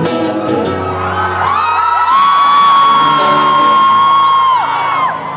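Audience screaming and whooping over a live acoustic guitar. Several high voices rise together about a second and a half in, and one scream is held for about three seconds before dropping off near the end.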